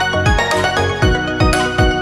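Background music with a steady beat of low drum hits under held notes.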